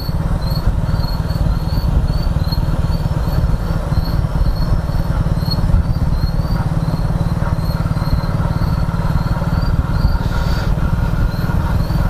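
Motorcycle riding along at steady speed, a constant low rumble, with a cricket chirping evenly about two to three times a second above it.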